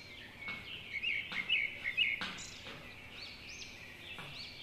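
Small birds chirping, with quick high calls that rise and fall in pitch over and over and a louder flurry of notes between one and two seconds in. Under them are faint taps and scrapes of chalk writing on a chalkboard.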